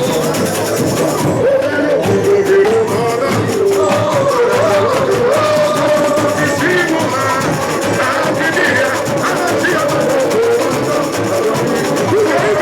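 Samba school drum section (bateria) playing a fast, dense samba groove, with voices singing the samba-enredo melody over it.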